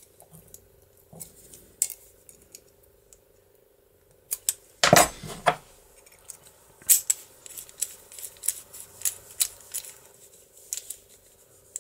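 Small metallic clicks and scrapes as a key is worked into a DOM IX lock cylinder and its parts are handled, with one louder metal clatter about five seconds in. A faint steady hum runs underneath.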